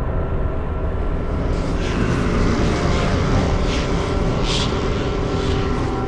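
Experimental techno track: a dense, rumbling electronic drone with a held tone, joined about a second and a half in by swelling hiss in the highs and several brief hissing sweeps.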